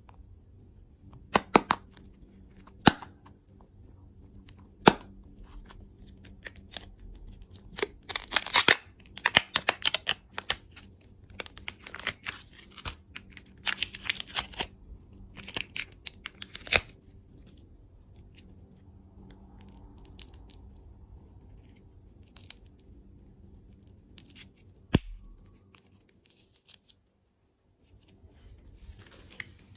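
Candy packaging being opened: a few sharp snips or snaps, with a dense run of crinkling and tearing in the middle.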